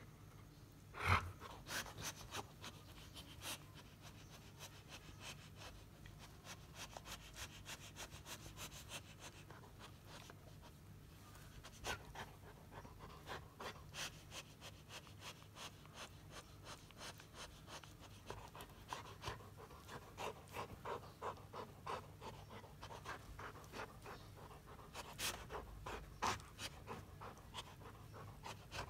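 Labrador retriever chewing and mouthing a plush toy: many short wet clicks and smacks of the mouth, with panting breaths, and one louder sharp sound about a second in.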